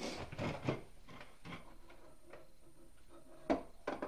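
Scattered light knocks and clicks of items being handled on a tabletop, the loudest a sharp knock about three and a half seconds in.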